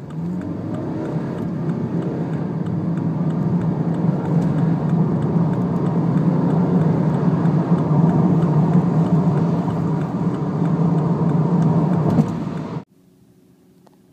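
BMW F30 diesel engine and exhaust under acceleration: a steady, deep note that grows gradually louder over several seconds, then cuts off suddenly near the end.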